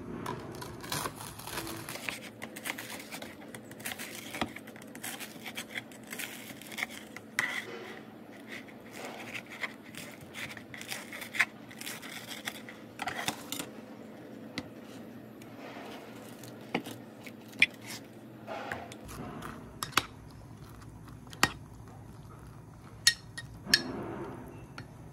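Kitchen knife cutting slices of toast on a plastic cutting board: crunching cuts and sharp taps of the blade on the board, busiest in the first half and sparser later. Near the end a metal spoon stirs and scrapes in a ceramic mug.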